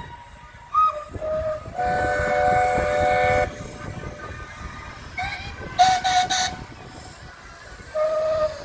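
Steam whistles of several steam engines blowing one after another at different pitches: short toots, one whistle sounding a chord of several notes for about a second and a half, and another starting up near the end.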